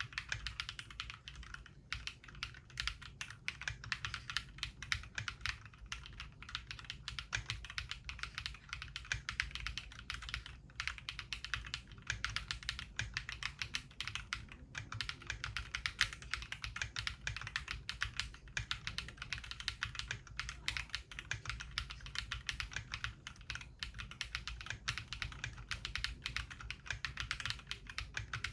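Fast, continuous typing on a Mongeek M5 mechanical keyboard fitted with Akko Piano switches, a dense unbroken stream of keystroke clacks. The switches are fully lubed with Krytox 205, filmed with Poron, and the case is foam-dampened, which gives a muted, deeper key sound.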